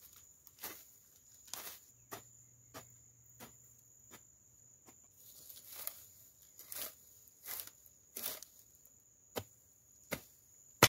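Irregular sharp knocks and scuffs, about fifteen of them, from hand-planting seeds in loose soil among brush. A steady high-pitched insect trill runs underneath.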